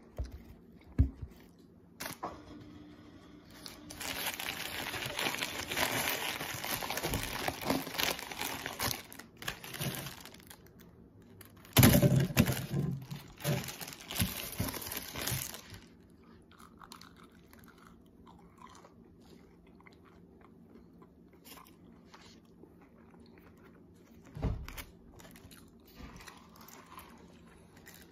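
Paper burger wrapper crinkling and rustling as the burger is unwrapped by hand, in two long loud stretches over the first half. After that come quieter handling sounds and a single soft thump about two-thirds of the way in.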